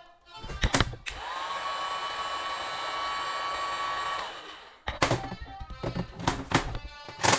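Small electric motor starting up, running steadily for about three seconds and stopping, with a whine that rises as it spins up. It is likely the treatment table's height-adjustment motor, run from the repaired foot pedal. Knocks and clicks come just before it starts and again after it stops.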